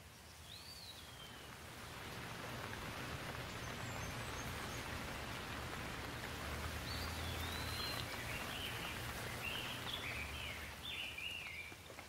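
Steady rain falling, building over the first two seconds and easing near the end. A bird chirps once near the start and gives a run of short chirps in the second half.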